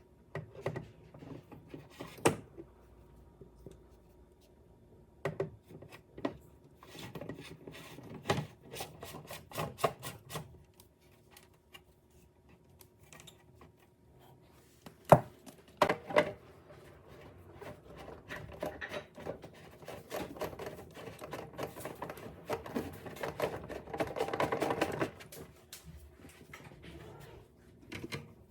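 Hands working on plastic water-filter housings and cartridges: scattered knocks and clicks, the loudest about halfway through, then several seconds of close scraping and rubbing.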